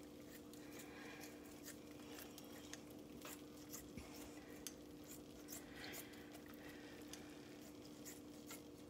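Faint, irregular snips and clicks of kitchen scissors cutting partly thawed bacon into pieces, over a steady faint hum.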